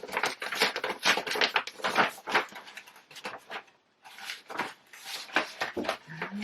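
Paper packaging rustling and crinkling as an envelope is opened and its contents handled: irregular quick rustles and clicks, with a brief pause about four seconds in.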